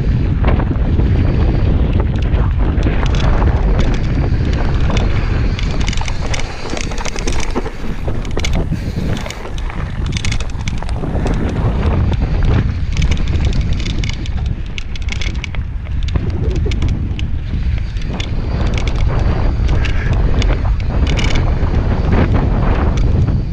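Wind buffeting the microphone while a mountain bike rides down a dirt singletrack, with tyres rumbling over the trail and frequent short clicks and rattles from the bike over bumps.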